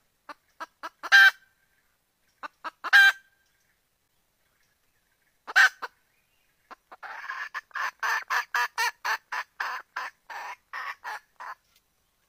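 Red junglefowl hen calling: a few soft clucks and three louder single calls, then a fast run of clucks at about four a second lasting some four seconds. It is the wild hen's call to draw a rooster.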